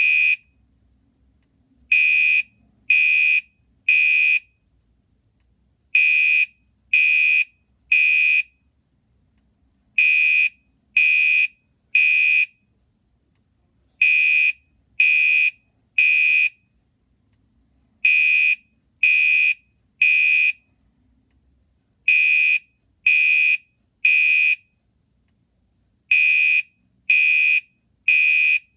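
Gentex Commander 3 fire alarm horn sounding a piercing electronic beep in groups of three, about one beep a second, with a pause after each group, repeating every four seconds. This is the temporal-3 evacuation pattern.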